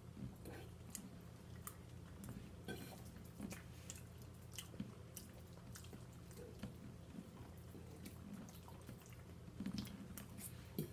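A person chewing soft, wet food (turkey Alfredo and dressing) close to the microphone, with scattered small mouth smacks and wet clicks over a faint steady low hum.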